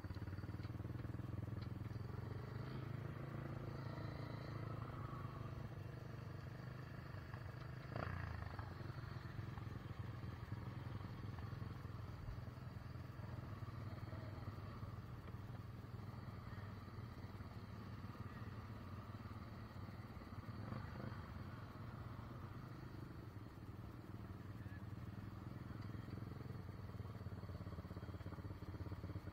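ATV engine running steadily as the quad rides along a dirt trail, heard from on board the machine, with one short knock about eight seconds in.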